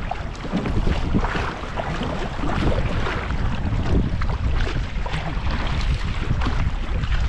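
Wind buffeting the microphone with water lapping and splashing against a kayak's hull: a steady low rumble with irregular small splashes.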